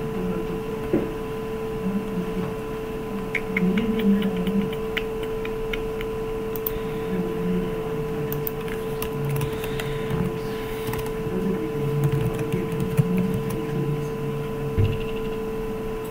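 Computer keyboard keys being typed in short runs of clicks, over a steady electrical hum.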